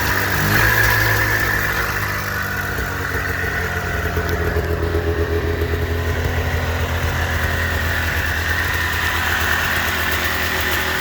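Freshly rebuilt 1989 Yamaha Exciter 570 snowmobile's two-stroke twin engine running; the revs drop in the first couple of seconds and it settles into a steady, evenly pulsing idle.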